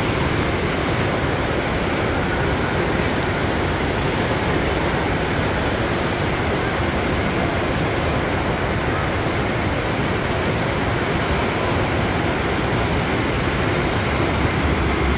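Whitewater rapids rushing steadily, a loud even wash of churning river water.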